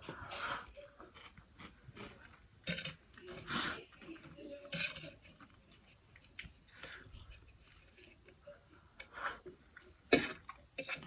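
A person eating spicy noodles close to the microphone: chewing, with a handful of short, separate noisy bursts of slurping and utensil clinks against the container.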